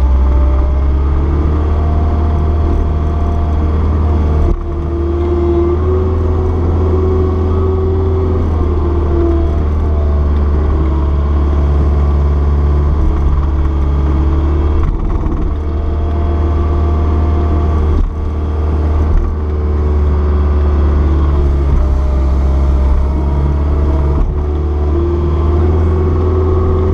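Caterpillar 236B skid steer's diesel engine running steadily while pushing snow, its pitch rising and falling slightly with the load.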